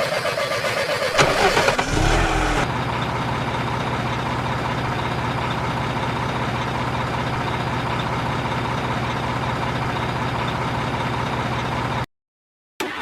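Diesel truck engine being turned over by its starter, catching about a second in with a short rev, then settling into a steady idle. The sound cuts off abruptly near the end.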